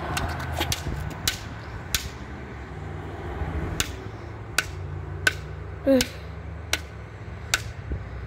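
Footsteps on a concrete sidewalk: sharp, evenly paced steps about every 0.7 seconds over a steady low hum, with a brief squeak that falls in pitch about six seconds in.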